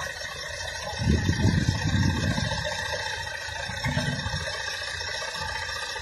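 Heavy diesel engine of a wheel loader running, holding another loader up in its bucket; a louder low rumble swells for about a second and a half starting about a second in.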